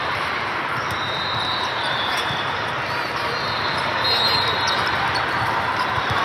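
Gym noise during a volleyball game: a steady, reverberant hubbub with a ball bouncing on the hardwood and a few short high squeaks of shoes on the court.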